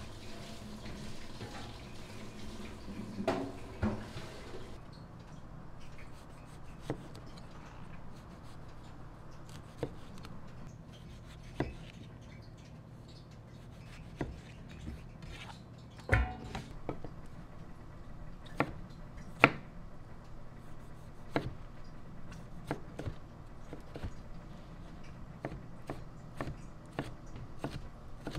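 Kitchen knife slicing tomato and onion on a cutting board: irregular sharp knocks of the blade against the board every second or two, after a steady hiss in the first few seconds.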